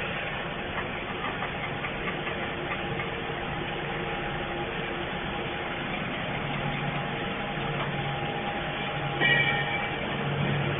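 Steady hum of a running wire-and-cable production line, its machines holding several steady tones. A short, high-pitched squeal sounds about nine seconds in.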